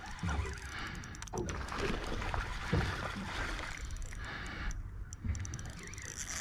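Water lapping against a small boat's hull, with wind and handling noise and irregular fine ticking from a spinning reel as a hooked fish is played on the rod.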